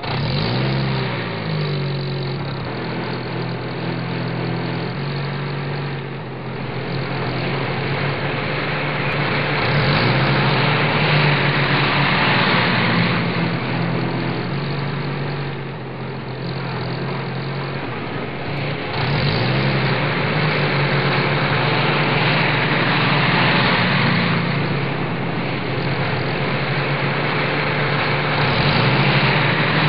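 Heavy engine sound effect idling and revving, rising in pitch about every nine seconds in a repeating loop, dubbed over plastic toy trucks pulled on a string.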